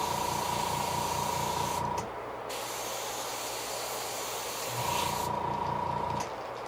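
Airbrush spraying paint onto a fishing lure: a steady hiss of air that stops briefly twice. A pulsing hum with a steady tone comes in twice for a second or two and is the loudest sound.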